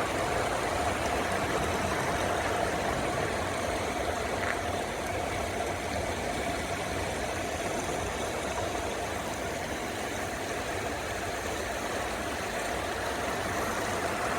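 Steady rushing of river water flowing over a rocky bed, an even noise that holds without break.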